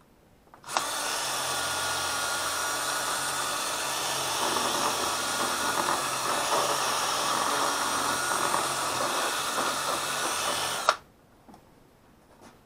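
Electric drill running steadily for about ten seconds, enlarging a hole in fiberglass; it starts just under a second in and stops abruptly.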